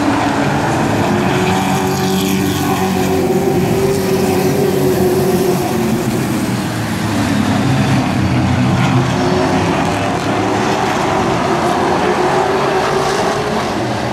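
Several race trucks' engines running as they circle a short oval, their pitch rising and falling as they go around.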